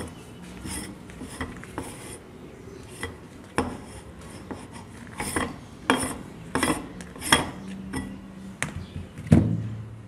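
Hand-cranked metal meat grinder grinding bar soap: scraping and rasping with a run of sharp metallic clicks and knocks, the loudest near the end.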